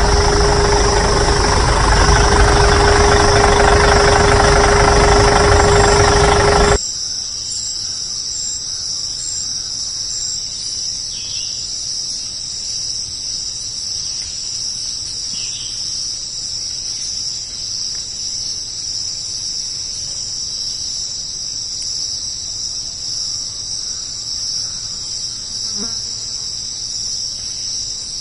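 A loud engine-like drone with a steady hum runs until about seven seconds in, then cuts off suddenly. After it, insects chirr steadily at a high pitch.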